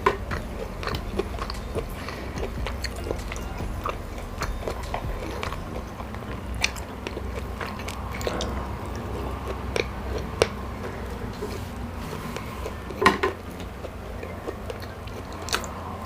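A person chewing and biting food close to the microphone, with many small scattered clicks and a louder cluster of clicks about thirteen seconds in, over a steady low hum.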